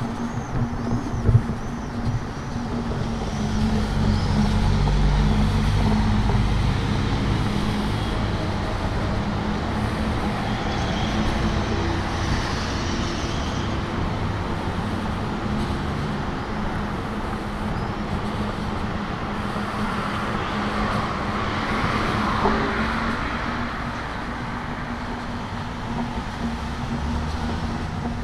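City street traffic: motor vehicles passing, with a steady low engine hum underneath. A heavier vehicle's low rumble swells a few seconds in, and another vehicle passes about two-thirds of the way through.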